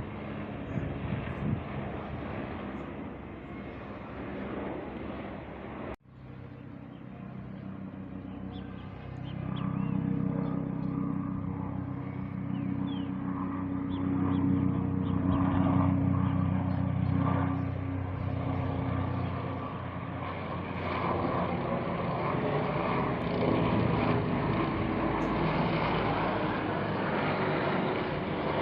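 Helicopter flying past low overhead, rotor and turbine sound steady and loud. It breaks off abruptly about six seconds in, then a helicopter is heard again, its engine tone swelling and holding for several seconds before fading into a wider rush of rotor noise.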